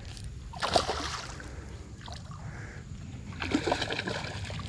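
Hooked bass splashing at the water's surface beside a kayak as it is reeled in: one sharp splash about a second in, and a louder stretch of splashing near the end.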